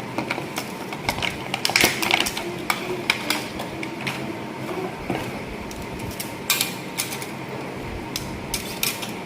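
Hard plastic toy-track parts being handled and set down: irregular clicks and knocks, with a louder clatter about six and a half seconds in.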